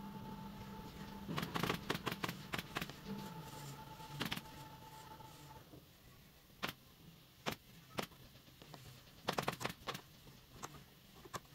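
Sharp clicks and knocks at irregular intervals, some in quick clusters, over a steady machine hum that stops a little past halfway.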